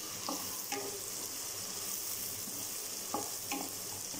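Sliced shallots sizzling in sesame oil in a kadai, with a steady high hiss. A spatula stirs and scrapes through them in two pairs of short strokes, soon after the start and again about three seconds in.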